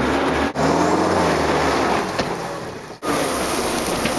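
A motor vehicle's engine running and revving up and down, broken by two abrupt cuts, about half a second and three seconds in.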